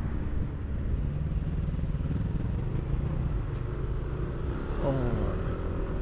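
Yamaha NMAX 155 scooter's single-cylinder engine with a modified exhaust, running steadily at low speed in slow traffic, heard as an even low rumble.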